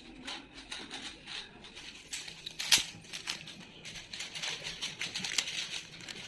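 Faint, irregular clicks and light taps in a small room, with one sharper click a little under three seconds in.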